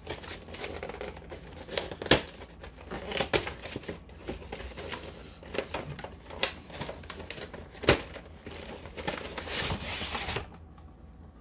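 Cardboard and plastic packaging of a Pokémon card collection box being opened and handled: irregular rustling and crinkling with sharp clicks and snaps, and a denser stretch of crinkling near the end.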